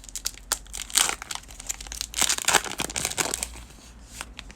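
A foil trading-card pack wrapper being torn open and crinkled in the hands, in a run of irregular crackles, loudest about a second in and again through the middle, dying away near the end.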